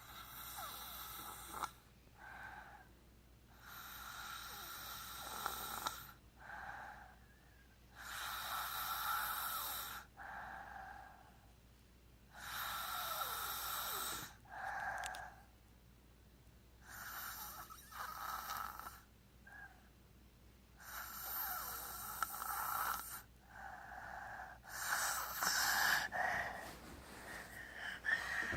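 Snoring: a rasping breath about every four seconds, each longer, louder breath followed closely by a shorter one.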